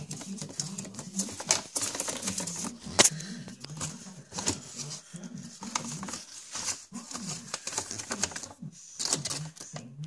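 Cockatiel's claws ticking and scratching on the floor of a paper bag as it walks about, the paper crackling as it moves. The ticks come in quick irregular runs, the sharpest about three seconds in.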